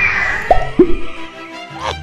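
Animated logo intro jingle: music with cartoon sound effects, a sweep falling in pitch at the start, then two short downward-sliding plops about half a second and nearly a second in.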